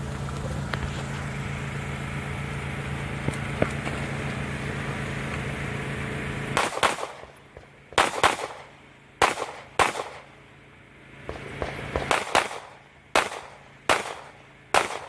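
A steady hum, then from about six and a half seconds in, about a dozen gunshots fired at an irregular pace, some in quick pairs and some a second or more apart.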